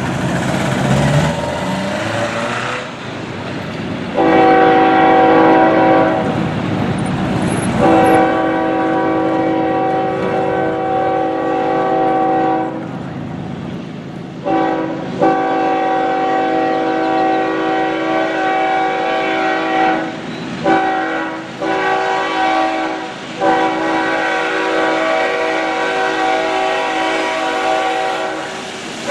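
Diesel freight locomotive's multi-note air horn sounding about five mostly long blasts with short breaks, the first starting about four seconds in. This is the warning for a grade crossing, sounded over the running noise of the approaching train.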